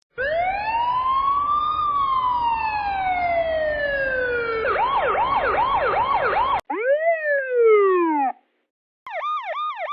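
A run of emergency-vehicle siren clips: a slow wail that rises and then falls gradually before switching to a fast yelp, which cuts off abruptly; then a different siren with a single rise and fall, a short gap of silence, and another fast yelping siren near the end.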